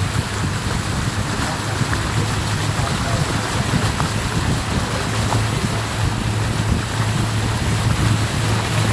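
A tour boat's motor running steadily under way, a low hum beneath a rushing noise of wind on the microphone; the hum grows stronger a little past halfway through.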